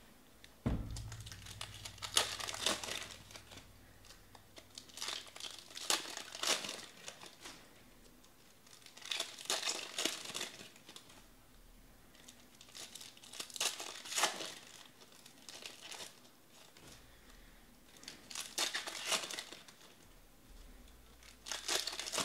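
Trading-card pack wrappers crinkling as they are torn open by hand, in six bursts about every four seconds. There is a soft thump on the table near the start.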